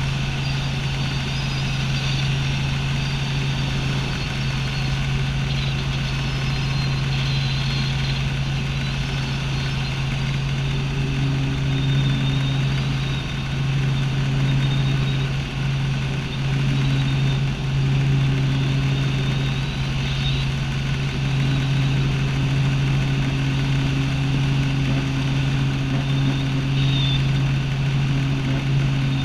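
Light helicopter in flight, heard from inside the cockpit: the engine and rotors make a steady, even drone with a strong low hum and a thin high whine.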